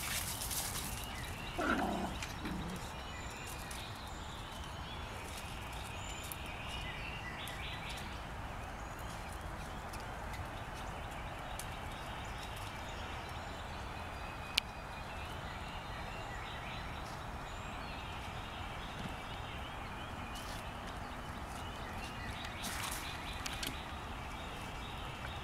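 Outdoor ambience: a steady background hiss with faint high chirps scattered through it. A short falling call comes about two seconds in, and a single sharp click near the middle.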